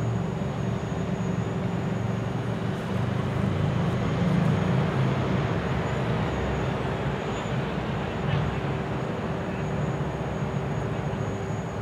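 Steady low background rumble of outdoor urban noise, with a faint constant hum running through it.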